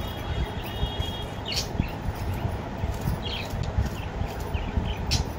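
Kitchen knife chopping carrots on a cutting board: a run of quick, irregular knocks.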